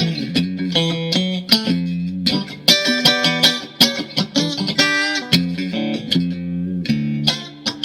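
Mexican-made Fender Stratocaster electric guitar being played: a run of quick picked notes and short chords with brief gaps between phrases.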